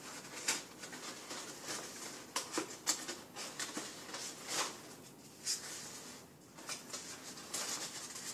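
Stiff paper pieces of an IQ lamp rustling and crackling in short, irregular crinkles as they are bent and slotted into one another by hand.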